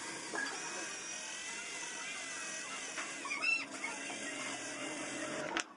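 Cordless drill running, its bit boring a hole into a drawer front, with a steady, slightly wavering motor whine. The sound cuts off suddenly near the end.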